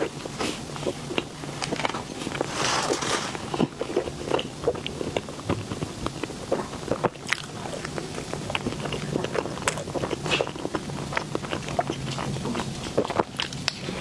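Close-miked eating of a small mousse cake: bites, chewing and wet mouth clicks, a run of many short irregular clicks and crackles.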